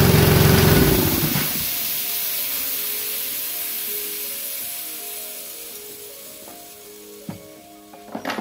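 Small gas engine of a Rol-Air belt-drive air compressor running, then shutting off about a second in. A hiss of escaping air follows and fades away over several seconds, with a few clicks near the end.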